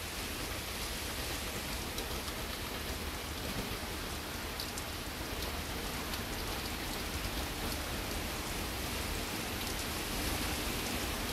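Steady hiss of rain falling, with a low rumble underneath.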